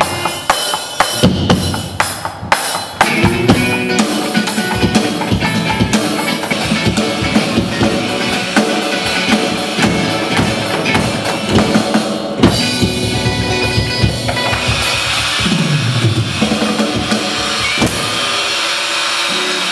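Electronic drum kit played in a fast drum solo: rapid snare and tom strokes over the kick drum, with cymbal hits, heard through amplification. An electric guitar plays along underneath, and near the end the drumming gives way to a steadier held sound.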